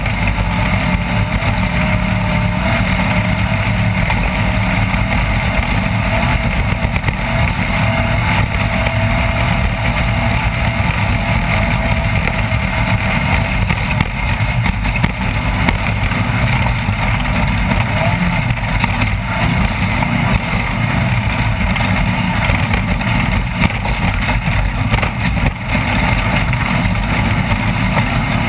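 Off-road race vehicle's engine running steadily at speed, with the dense noise of the vehicle travelling over rough ground.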